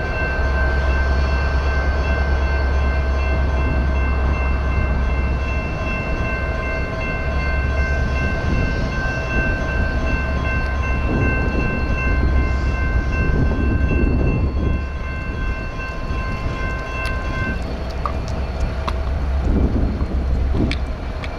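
Railroad crossing warning bell ringing steadily while the gates lift, then cutting off about three-quarters of the way through. A few sharp clicks follow, and a low rumble runs underneath.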